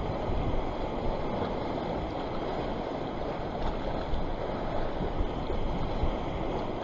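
Choppy sea washing against the rocks in a steady rush, with some wind noise on the microphone.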